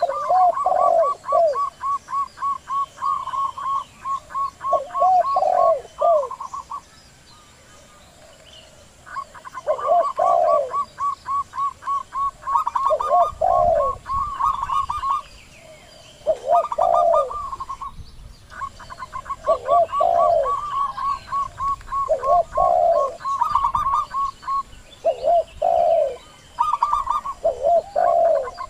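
Zebra doves (perkutut) cooing: short rolling coos in twos and threes, repeated every second or two, over a fast, higher-pitched run of clipped notes that plays in stretches of several seconds and breaks off twice.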